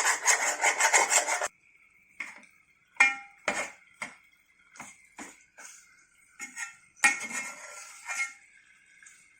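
A spoon stirring chicken in a cooking pot, scraping quickly against the metal and then stopping abruptly about a second and a half in. Scattered single knocks and scrapes of the spoon against the pot follow, with a short burst of scraping near the end.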